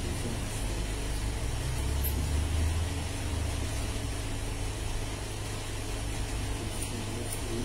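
A steady low rumble, like an idling engine. Over it come a few faint, thin clicks of hair-cutting scissors snipping.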